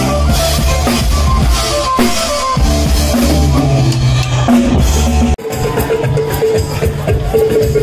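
Loud band music driven by a full drum kit, with bass drum and snare hits over bass notes. A little over five seconds in, the sound drops out abruptly and another drum-heavy passage picks up.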